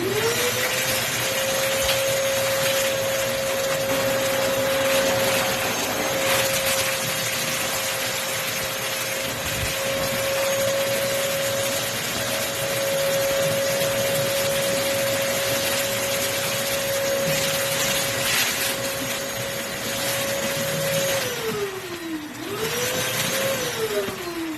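Mastervac 16-gallon, 5-horsepower wet/dry shop vacuum motor spinning up and running with a steady whine over loud airflow hiss. About 21 seconds in it is switched off and winds down, is switched briefly back on, then winds down again near the end.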